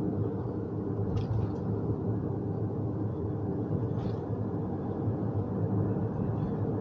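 Steady road and engine noise inside a car cruising at an even speed.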